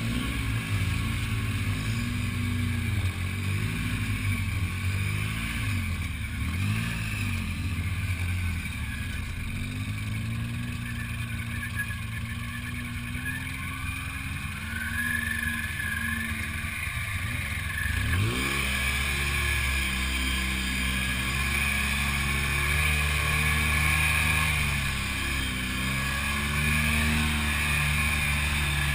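Side-by-side off-road buggy's engine, heard from the cab while driving over rough ground, its revs rising and falling. The revs climb sharply about eighteen seconds in and stay higher after that.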